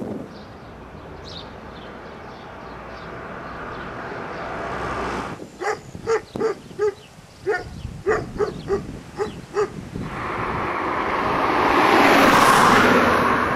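A large dog barking repeatedly, about ten short barks over some four seconds around the middle. Near the end a broad rush of noise swells and fades away.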